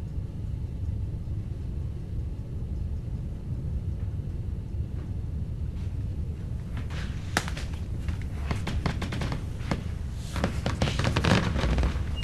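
A low, steady rumble, with sharp clicks and crackles that start about halfway through and grow denser toward the end.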